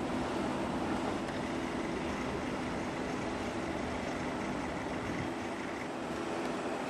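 Steady distant town traffic noise with a faint, even low hum.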